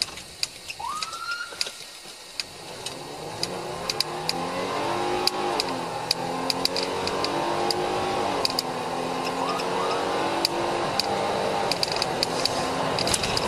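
Police patrol car's engine and road noise building steadily louder as the car accelerates to high speed, the engine pitch climbing with a couple of brief dips. A short rising chirp comes about a second in, and sharp ticks are scattered throughout.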